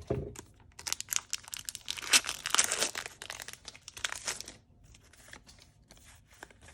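Pokémon TCG booster pack foil wrapper being torn open and crinkled: a dense run of crackling and tearing from about a second in to about four and a half seconds, then softer rustles. A soft thump right at the start.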